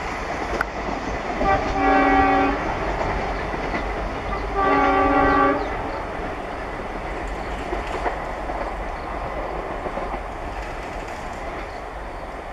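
Diesel locomotive horn sounding two blasts of about a second each, a few seconds apart, over the steady running noise of the train on the rails.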